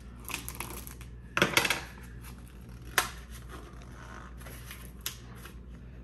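Scissors cutting and scraping at a small box to open it, with rustling and a few sharp clicks; the loudest burst comes about a second and a half in, with sharp clicks at about three and five seconds.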